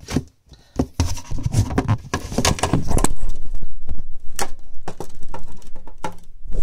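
Handling noise from a phone held close to its microphone: rubbing, knocks and scattered clicks, growing louder and denser about three seconds in.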